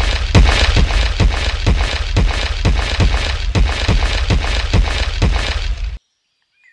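Tractor engine sound effect: a rough, loud chugging at about four beats a second over a low rumble, cutting off suddenly about six seconds in.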